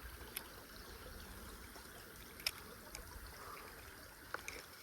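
Faint steady trickle of a shallow creek's running water, with a few faint, sharp clicks.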